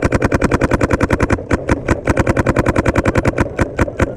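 Paintball marker firing in rapid fire, about a dozen shots a second in long strings with a couple of brief breaks.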